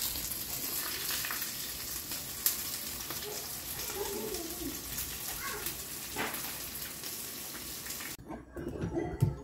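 Food frying in a hot pan, a steady sizzle that stops abruptly near the end.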